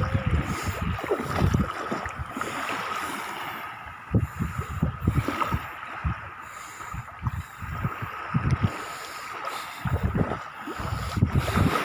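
Wind buffeting the microphone in irregular gusts, over the wash of small waves in shallow sea water.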